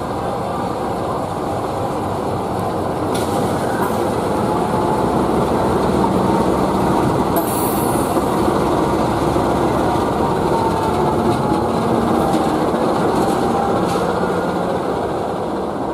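KAI CC 206 (GE C20EMP) diesel-electric locomotive hauling a rake of passenger coaches past at close range. Its diesel engine runs steadily and the wheels roll on the rails, the sound swelling as the locomotive comes abreast and easing off near the end.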